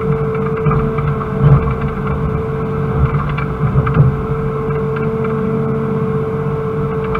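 Excavator's diesel engine running steadily under digging load, heard from inside the cab, with a steady whine held throughout. A few short knocks come as the bucket works the rocky soil.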